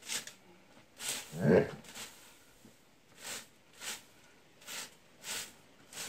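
A short straw broom sweeping hay over a stone floor: a run of brief, regular swishes, falling into about one stroke every half-second in the second half. About a second and a half in there is one louder, lower sound.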